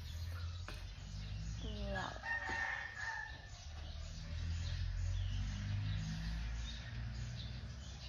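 A rooster crows once, about two seconds in, over a low steady hum.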